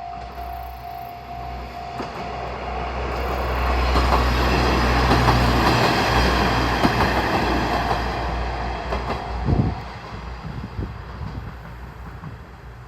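Diesel train passing a level crossing: a low engine rumble and wheel noise swell to a peak in the middle and fade, with a few sharp clacks of the wheels over the rail joints near the end. The crossing's electronic warning bell rings at the start and is drowned out as the train arrives.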